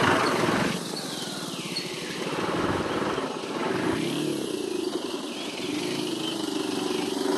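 Motorcycle engine running at low speed as the bike rides through shallow floodwater, with a steady hiss of water and air over it. The noise is loudest in the first second.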